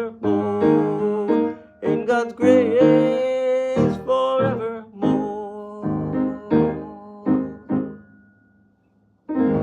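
The closing bars of a gospel hymn: a sung final note held over piano accompaniment, then piano notes dying away to near silence, and one last piano chord struck near the end.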